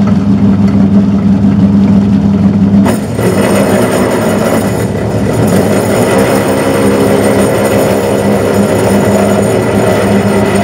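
Metal lathe running with a steady motor hum. About three seconds in, the sound changes and a harsher, higher noise with a thin ringing tone joins as the tool starts cutting into the change gear's bore.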